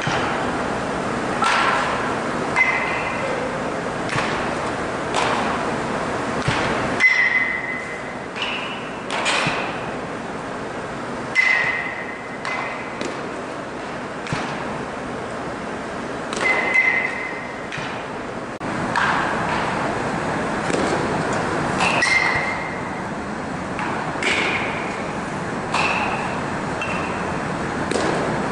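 Batting practice in an indoor cage: baseball bats striking pitched balls again and again, irregularly every one to three seconds, many hits with a short ringing ping, along with duller thuds of balls into the netting.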